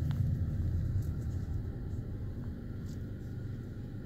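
Low, steady rumble of a car's road and engine noise heard from inside the cabin of a moving car, easing slightly toward the end.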